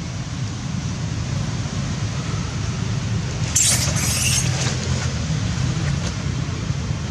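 Steady low rumble of wind on the microphone, with a brief crackly rustle, in two quick parts, about three and a half seconds in.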